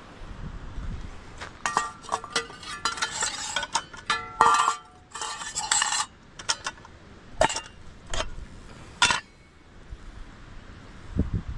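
Metal camping cookware clinking and clanging as pots, a strainer and a lid are nested together, each knock briefly ringing. There is a quick string of clinks for several seconds, then a few separate knocks, the last about nine seconds in.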